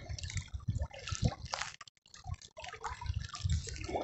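River water splashing and dripping close by, with low rumbling bumps. The sound drops out briefly about halfway through.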